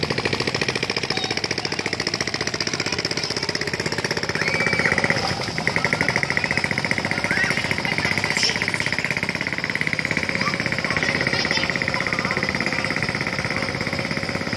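Cicadas buzzing in a dense, rapid pulsing chorus at a steady level, with a few short high chirps over it.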